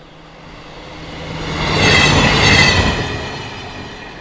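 A train passing by: the rumble builds to a peak about two seconds in and then fades away. Several high, steady tones sound at its loudest.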